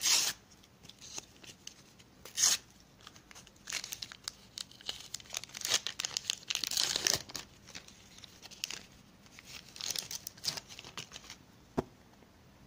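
NBA sticker pack being torn open and its paper wrapper crinkled: a sharp rip at the start and another about two and a half seconds in, then a longer spell of tearing and crinkling around six to seven seconds, with more rustling about ten seconds in and a single click near the end.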